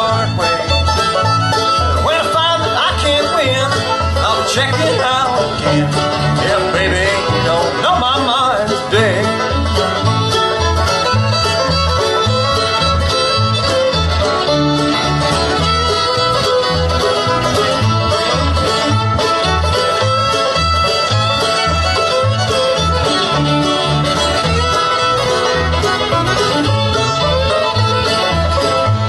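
Live bluegrass band playing, with banjo, fiddle, acoustic guitar and mandolin over an upright bass plucking a steady beat.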